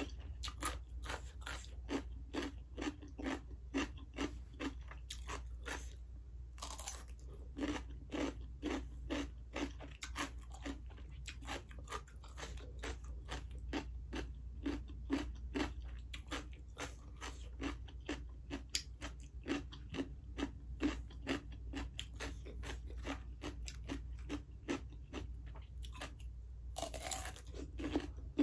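Crunching and chewing of raw white radish (mula) close to the microphone, a steady run of crisp crunches at about two to three a second. Two louder crunches come about seven seconds in and near the end.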